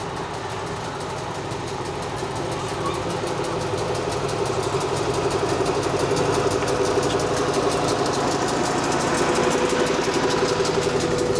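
Engine of a 15-inch-gauge miniature diesel-style locomotive running with a fast, even pulse, growing louder as the train approaches and passes.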